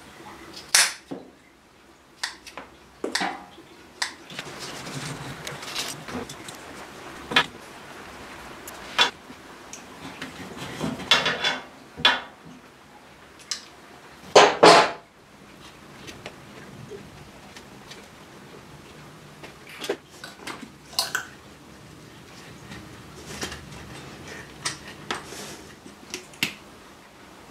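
Scattered clicks, clanks and rustles of hand tools and rubber fuel hose on a steel workbench as the hose is cut with snips and then fitted with a spring hose clip using pliers. The loudest is a sharp double knock about halfway through.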